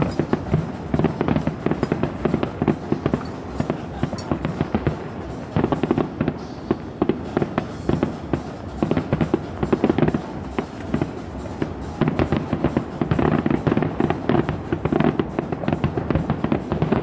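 Fireworks display: aerial shells bursting and crackling in quick, dense succession, with no pause.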